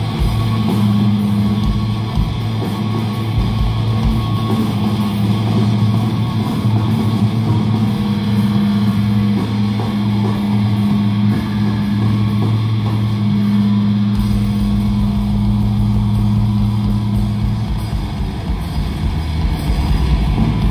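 Live rock band playing loudly on amplified electric guitars, bass and drums, holding a low droning note with its octave. A deeper rumble joins about two-thirds of the way in.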